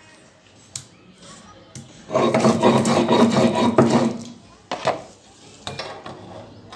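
Stone roller rubbed back and forth on a flat grinding stone (sil-batta), grinding a wet green herb paste: a loud rasping stretch of about two seconds in the middle, with a few sharp knocks before and after it.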